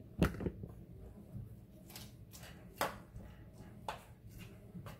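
A fork clicking and scraping against a mixing bowl while shredded cabbage and carrots are stirred into an egg batter: scattered, uneven taps with soft stirring between them.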